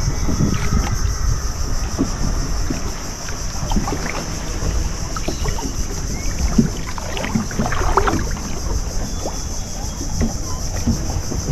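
Fiberglass fishing boat under way, its outboard engine running beneath wind buffeting the microphone, with scattered splashes of water against the hull.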